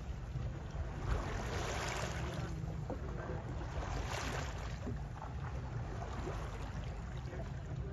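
Water sloshing and splashing against a boat's hull, with a steady low rumble of wind on the microphone. The splashing swells louder twice, about two and four seconds in.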